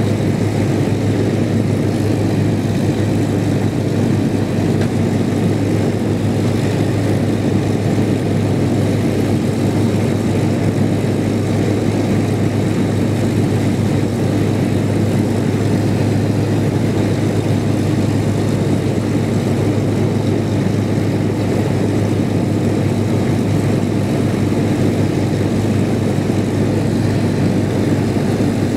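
A de Havilland Mosquito's two Merlin V12 engines idling on the ground, propellers turning, with a steady, unchanging drone.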